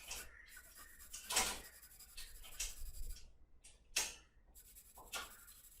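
Sketching strokes on paper: irregular scratchy rubs and strokes of a drawing tool laying down dark shading, a louder stroke about a second and a half in and another near four seconds.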